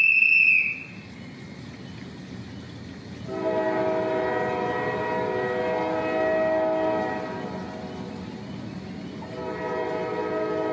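SNCF diesel railcar running, sounding a long sustained horn from about three seconds in, fading out, then sounding again near the end. A short high whistle tone cuts off just after the start.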